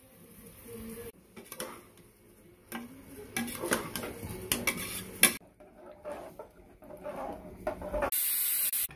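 Dry rice pouring into an aluminium pressure cooker, then a metal slotted spoon stirring rice and vegetables in it, clinking and scraping against the pot. Near the end, a loud hiss lasting under a second.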